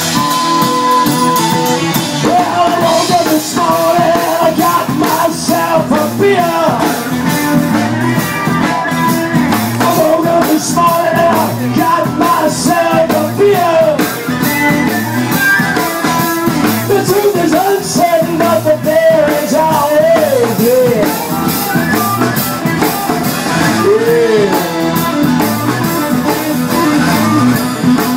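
Live amplified Celtic rock band playing an instrumental passage: drum kit, guitar and bass under a wavering, bending lead melody on a harmonica cupped to the microphone.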